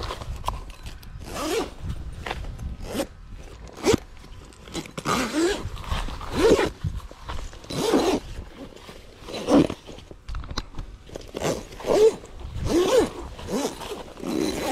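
Heavy zip on a Sibley canvas bell tent being drawn in a series of short pulls, about one a second, joining the canvas wall to the groundsheet.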